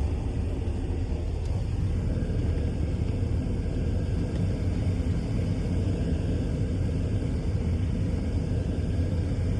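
Steady low rumble of a vehicle's engine and road noise as it drives slowly, with no sudden sounds.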